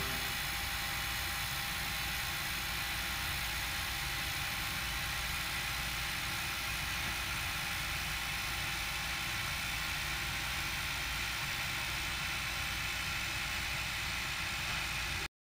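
Mechanized TIG welding arc hissing steadily at constant current, with no pulsing, then cutting off abruptly at the end.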